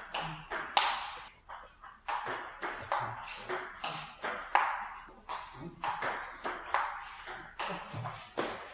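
Table tennis ball clicking off the paddles and the table in a continuous rally, about two hits a second.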